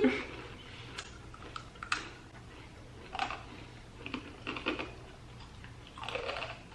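Potato chips being crunched while chewing: irregular crisp crackles and clicks, with a few louder crunches about a second apart near the start and a cluster toward the end.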